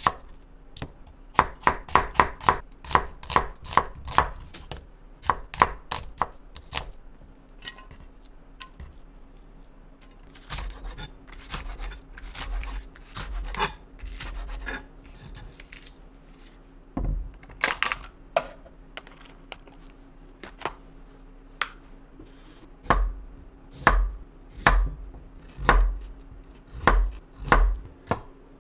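Kitchen knife chopping on a cutting board. It starts with a quick run of about four strokes a second, followed by scattered strokes, and ends with slower, heavier chops about once a second.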